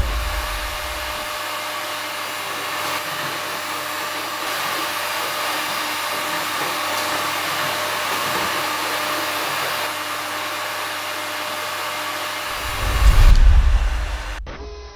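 A 1500 W electric heat gun running, its fan blowing a steady whooshing rush of hot air. Near the end a deeper rumble swells briefly before the sound cuts off.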